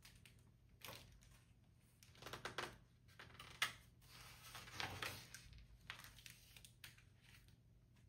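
Faint paper rustling and crinkling as a picture book's pages are handled and turned: a few short rustles spread over several seconds, the sharpest about three and a half seconds in.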